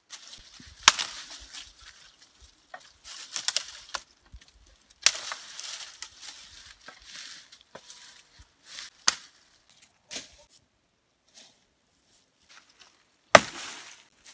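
Hatchet blows chopping dry branches: several sharp strikes at irregular intervals, the loudest near the end, with dry leaves and twigs rustling between them.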